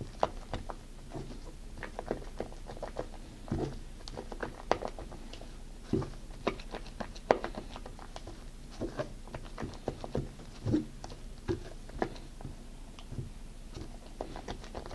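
Silicone spatula folding and scraping thick meringue in a stainless steel saucepan: irregular soft squelches and light taps against the metal, a few each second.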